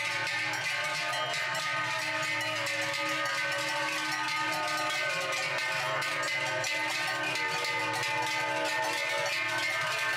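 Large cowbells worn by cows and goats in a herd being driven down from the mountain pasture, ringing and clanging together without a break as the animals walk.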